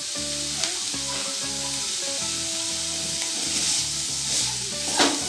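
Mixed chopped vegetables sizzling in hot oil in a kadai while a wooden spatula stirs and tosses them, scraping the pan, with one louder scrape near the end.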